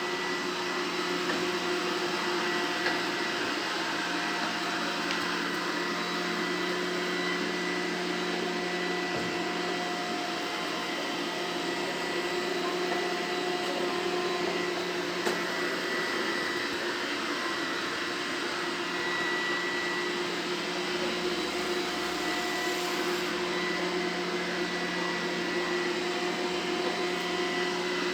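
Robot vacuum cleaner running steadily: an even motor-and-fan hum with a thin steady whine. Two short clicks come about 3 s and 15 s in.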